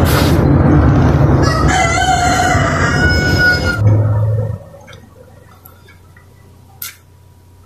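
A rooster crowing in one drawn-out call of about two seconds, over a loud steady rushing noise that cuts off abruptly a little past halfway. After that it is quiet apart from a single soft click.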